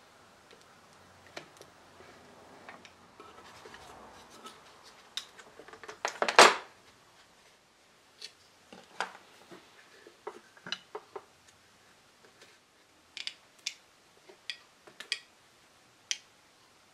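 Steel spring clamps handled and set onto a glued wooden frame corner: scattered sharp clicks and scrapes, with one loud clattering clack about six seconds in.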